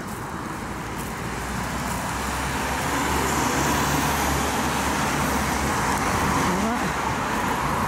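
Street traffic: cars driving by on a city road, a steady wash of engine and tyre noise that swells a little a couple of seconds in.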